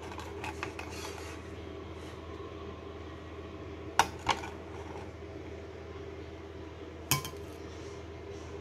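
Metal tongs clinking and scraping against a stainless steel idli plate as steamed idlis are lifted out: light scraping near the start, two sharp clinks about four seconds in and another about seven seconds in, over a steady low hum.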